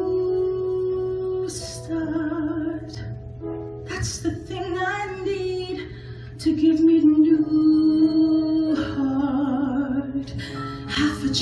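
A woman singing live with long held notes and vibrato, backed by a small band.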